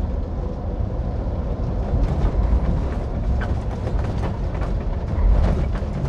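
Heavy truck driving on a rain-wet highway, heard inside the cab: a steady low engine and road rumble with tyre hiss from the wet asphalt and scattered faint knocks.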